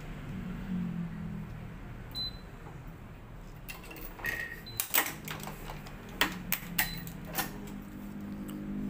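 Head electronic tennis stringing machine in use: a run of sharp clicks and clacks from its string clamps and tension-head gripper, bunched a little past the middle, with a few short high beeps, over a low steady hum.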